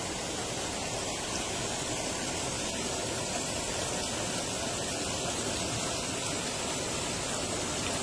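Steady rushing of water pouring over rocks in a small stream cascade.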